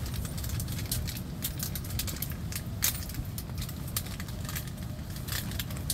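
Crinkling and rustling of a foil hot-chocolate sachet being handled and torn open, with scattered sharp crackles. Under it runs a steady low rumble of wind against the tent.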